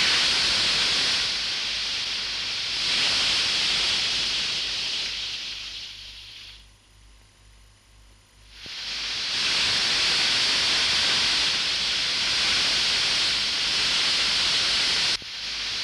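Gas torch hissing steadily as its flame is played over a sculpture's surface. It dies away for about two seconds midway, then comes back.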